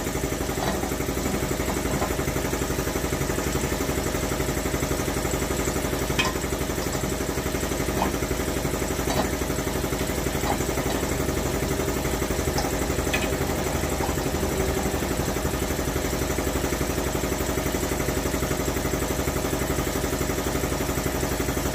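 An engine idling steadily. A few faint knocks from hands working the bladder into the accumulator bottle come through in the middle.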